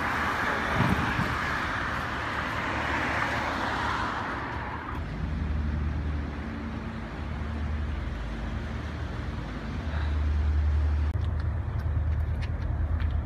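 Street traffic: a car's tyres and engine pass by during the first four seconds or so. Then a low, steady engine hum carries on, with a few light ticks near the end.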